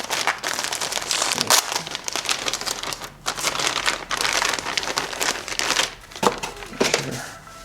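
Plastic packaging crinkling and rustling in irregular handfuls as parts are handled and unwrapped, easing off near the end.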